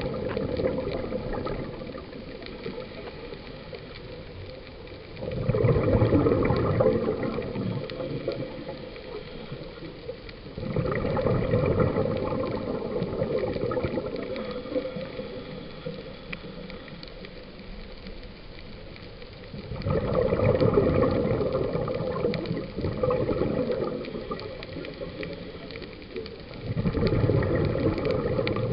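Underwater, a scuba diver's regulator venting exhaled air as bubbles: a bubbling rush that comes in surges every several seconds, each dying away over a few seconds, with quieter stretches between breaths.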